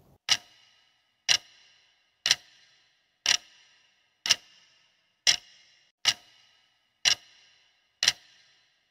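Clock-tick sound effect ticking once a second, nine even ticks, counting down the seconds of a quiz timer.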